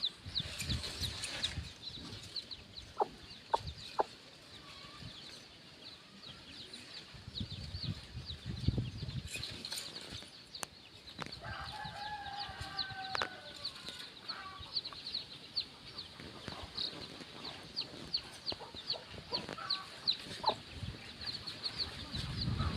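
A brood of baby chicks peeping constantly, many short, high, falling peeps. The mother hen clucks softly in the middle.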